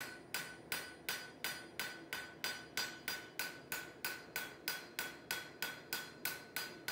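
A blacksmith's hammer striking on an anvil in a steady forging rhythm, nearly three blows a second, each blow ringing briefly.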